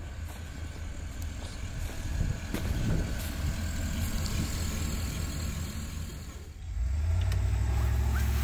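Truck driving: steady low engine and road rumble that grows louder about seven seconds in.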